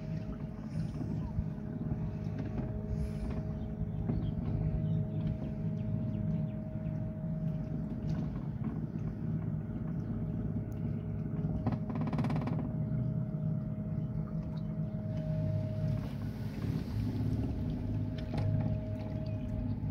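Donut boat's small motor running steadily: a low hum with a thin, steady whine above it. There is a short burst of noise about twelve seconds in.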